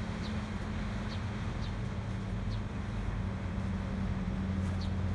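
A boat engine running steadily with a low hum, with a few faint, short, high chirps now and then.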